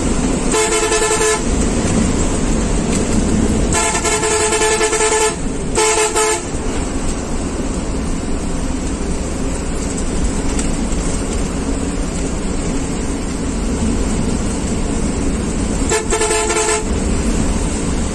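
Bus horn blown four times over the steady engine and road noise inside the cab: a short blast, a longer one of about a second and a half, another short one, then a fourth short blast near the end.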